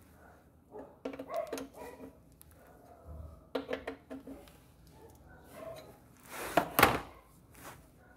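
Metal clinks and knocks of a wrench on the oil sump drain plug as it is screwed back in and tightened, in small clusters, with one louder clatter about two-thirds of the way through.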